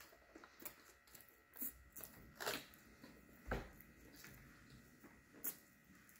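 Faint chewing of a soft chicken sandwich, with a handful of short wet smacks and clicks from the mouth and lips.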